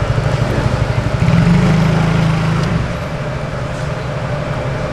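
Low, steady rumble of a nearby idling vehicle engine with a fast, even pulse. It swells louder for about a second and a half from about a second in, then settles back.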